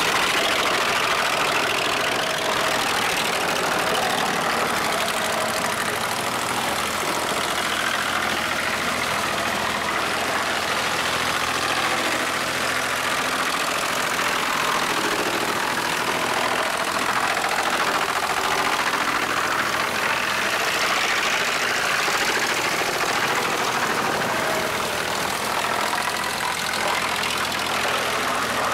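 Homemade wood chipper running steadily while old wooden boards are fed in and chipped: an even, continuous machine noise with no single loud bangs.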